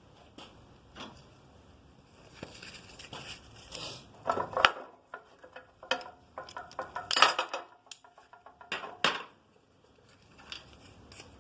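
Irregular metallic clinks and knocks as a brazed aluminium bar is handled and taken out of a bench vise. The loudest knocks come about four and a half, seven and nine seconds in.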